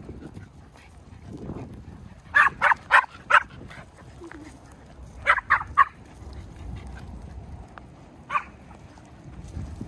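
Small dog yapping in quick runs of high, sharp barks: four about two and a half seconds in, four more about five seconds in, and a single yap near the end.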